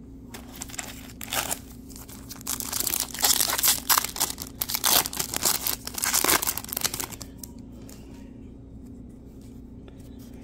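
Wrapper of a 2022 Topps Chrome Platinum baseball card pack crinkling as it is torn open by hand. The crackling starts about half a second in, is loudest in the middle, and stops about seven seconds in.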